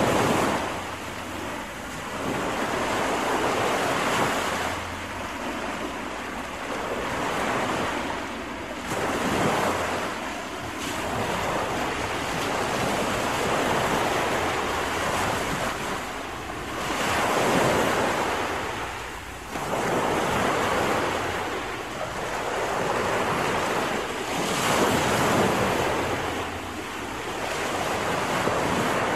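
Wind rushing over the microphone, with a low buffeting rumble, swelling and fading in gusts every few seconds.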